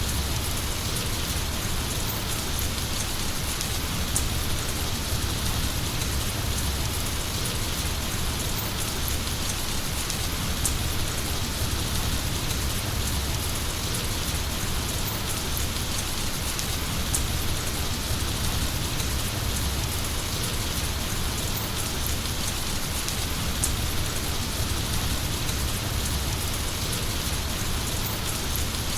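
Heavy rain falling steadily, a dense even hiss with scattered sharper drips and a low rumble underneath.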